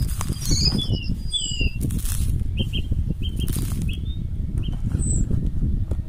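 Wind buffeting the microphone as a continuous, uneven low rumble, with small birds chirping in short high notes in the background.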